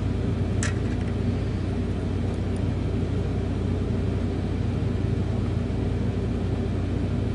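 Steady low hum with a single short click about half a second in.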